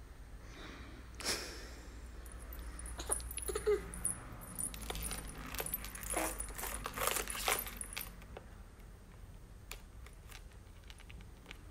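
A baby's hands slapping and tapping at a white MacBook's keyboard, the keys clicking while the metal bangles on her wrists jingle. The clicking and jingling come thickest in the middle stretch and thin out near the end.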